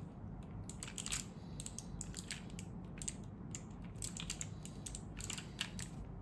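Typing on a 60% mechanical keyboard with clicky Kailh Box White switches in a steel plate and ABS keycaps: a quick, irregular run of crisp key clicks, several a second.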